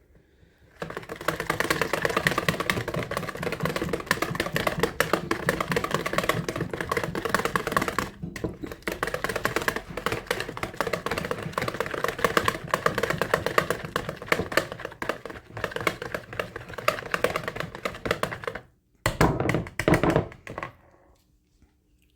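Wire whisk beating egg yolks into softened butter and cream in a bowl: fast, continuous clicking and scraping of the wires against the bowl, which stops near the end, then one more short burst.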